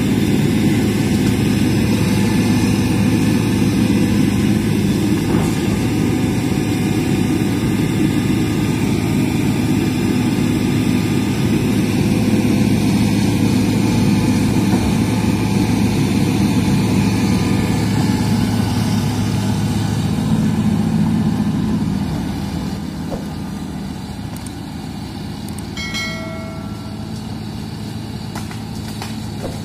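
Hitachi hydraulic excavator's diesel engine running loud and steady while the machine works brush and tracks over the muddy ground; the engine gets quieter about two-thirds of the way in. A short ringing tone sounds near the end.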